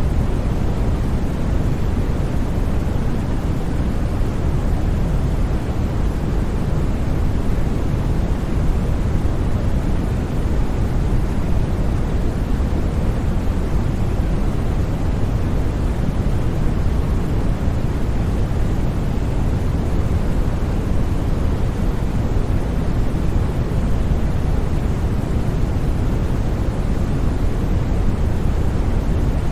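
Steady, unchanging generated noise for sleep, with no breaks or sudden sounds. Most of its energy sits low, so it sounds like a deep rushing hiss rather than a bright one.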